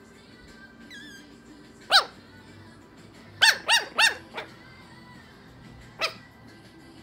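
French bulldog puppy giving short, high-pitched yappy barks. There is one about two seconds in, then a quick run of three with a fainter fourth just after, and one more near the end.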